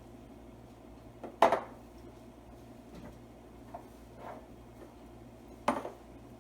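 A metal cooking utensil knocks sharply against a pan twice, with a couple of lighter taps and scrapes between, as shrimp are stirred into the sauce. A steady low hum runs underneath.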